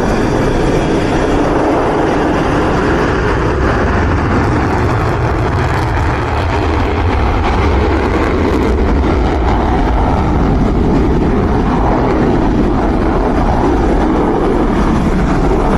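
Rafale fighter jet engines running, a loud, steady rumble with a hiss.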